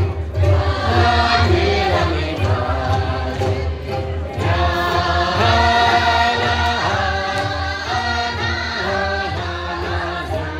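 Music with several voices singing a melody together over a steady low bass.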